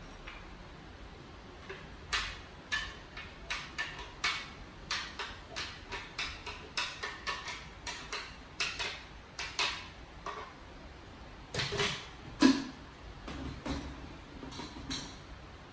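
Irregular clicks and taps of a spoon knocking and scraping against a plastic blender jar as blended avocado is emptied out, about two or three a second, with one louder knock about three-quarters of the way through.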